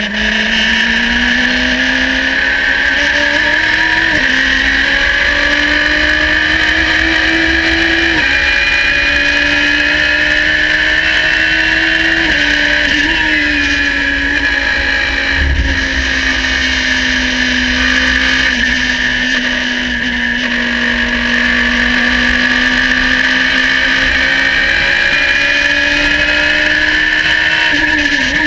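Onboard sound of a Radical race car's engine at full throttle, climbing in pitch and upshifting twice, about four and eight seconds in, then held at high revs down a long fast stretch. A steady high whine runs under the engine.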